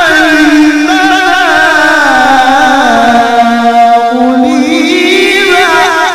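Male qari reciting the Quran in the melodic tilawah style into a microphone, sustaining one long unbroken melismatic phrase on a single breath. The line wavers in quick ornaments, sinks to a low note about halfway, then climbs again before breaking off right at the end.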